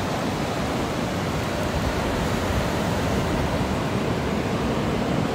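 Steady rushing noise of sea surf, mixed with wind on the microphone.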